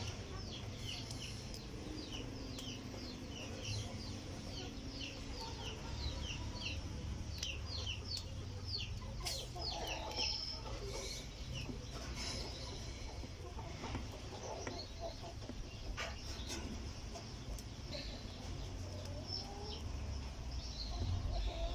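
Chicks peeping: a quick run of short high peeps that thins out about halfway through, over a low steady rumble.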